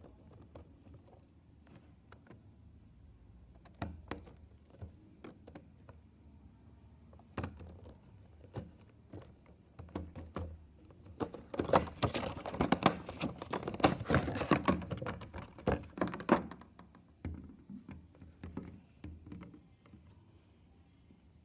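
Hands unpacking a boxed vinyl figure: plastic and cardboard packaging clicking, knocking and rustling. It starts as scattered knocks, then gets busy and louder from about 11 to 16 seconds.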